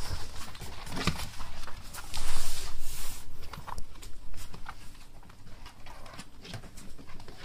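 Beagle puppies scampering about, their claws clicking and pattering on the floor in quick irregular taps, with a louder scuffle about two seconds in.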